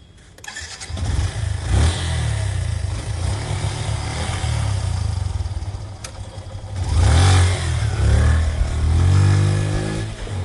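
A motorcycle engine starts with a click and catches within the first second, then runs with a low, uneven rumble. It is blipped briefly about two seconds in and revved hard about seven seconds in, the pitch gliding down and up again near the end.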